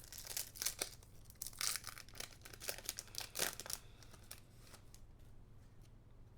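A foil trading-card booster pack being torn open and crinkled: irregular bursts of tearing and rustling that stop about four seconds in.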